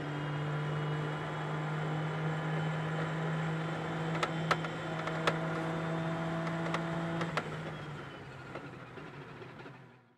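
Corvette race car's V8 engine heard from inside the cockpit, running at a steady pitch with a few sharp clicks partway through, then fading out to silence near the end.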